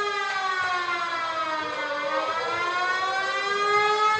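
Arena goal siren sounding for a goal, one continuous wail whose pitch sags slowly and then climbs back up.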